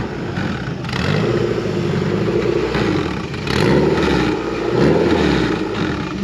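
Engine of a turbocharged Honda Civic coupe running as the car creeps into a parking spot. Its pitch rises and falls a few times as the throttle is worked.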